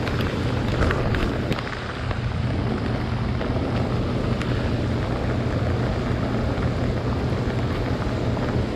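Steady wind and rain noise over open water, buffeting the microphone, with a constant low motor-like hum underneath and a few faint ticks in the first two seconds.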